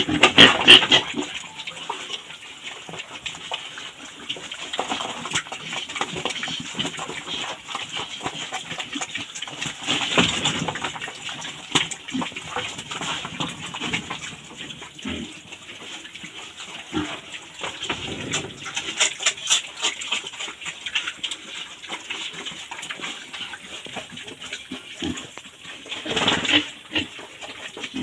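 Small spotted piglet grunting now and then as it eats feed from a tray and moves about its pen, amid scattered clicks and rustling. The louder bursts come at the start and about 10, 19 and 26 seconds in.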